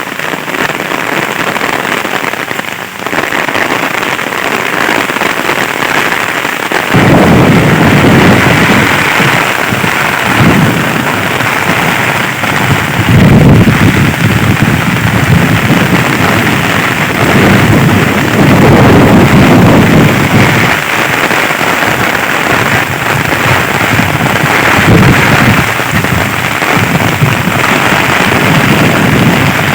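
Heavy rain pouring down steadily. About seven seconds in, deep rumbling surges join it and keep swelling and fading.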